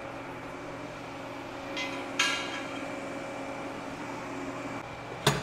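A 6061 aluminum weld-in bung is set into a hole in a cast aluminum intercooler with a ringing metallic clink about two seconds in, over a steady shop hum. A sharper knock comes near the end.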